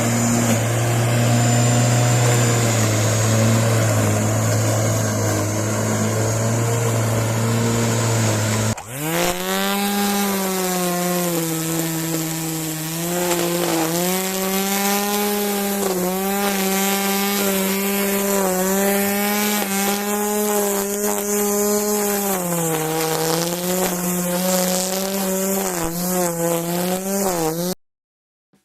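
Bosch corded electric garden tools (ARM 32 lawnmower and EasyGrassCut 23 grass trimmer) running under power. For about nine seconds one motor hums steadily with a high whine over it. It then switches abruptly to a motor that spins up with a rising whine and runs on, dipping briefly in pitch a few times, before cutting off just before the end.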